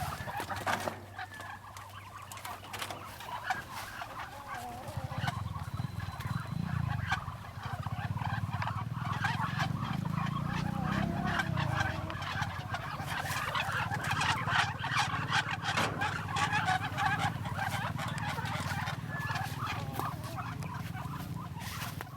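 A flock of farm poultry calling, with many short calls overlapping throughout.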